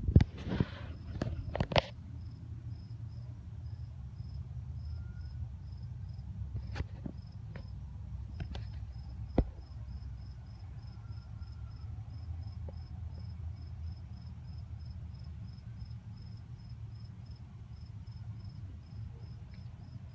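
A cricket chirping in an even, steady rhythm, high-pitched, over a low background rumble. A few loud knocks and rustles come in the first two seconds, with a few more single clicks later.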